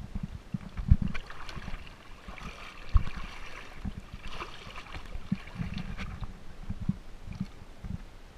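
Shallow seawater sloshing and splashing close to the microphone, with irregular low thumps; the two loudest thumps come about a second in and about three seconds in.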